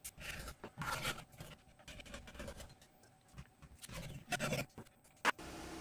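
Hands shifting and rubbing a wood-and-epoxy blank held in a metal machine vise: irregular faint scrapes and rustles, with a sharp knock about five seconds in.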